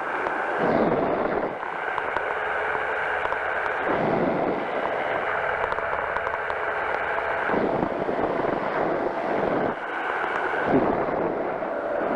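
Powered parachute's engine and propeller running steadily in flight, with a whooshing sweep that dips and rises every three seconds or so.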